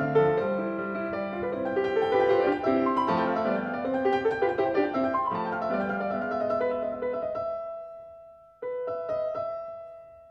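Background piano music playing a gentle melody; it fades away about eight seconds in and a new phrase starts with a struck chord shortly after.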